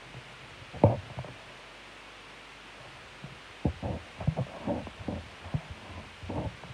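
Soft, irregular low thumps and rumbles: one just under a second in, then a cluster of them from about three and a half seconds in, over a quiet steady background.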